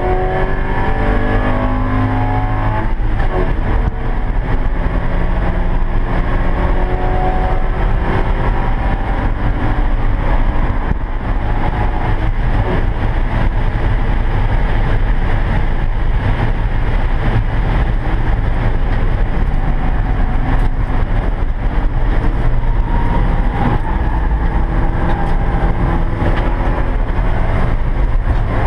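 Porsche 944 race car's four-cylinder engine heard from inside the cockpit, pulling hard with a gear change about three seconds in. Wind and road noise at speed fill the middle, and the engine note comes back near the end as the car slows from about 100 mph.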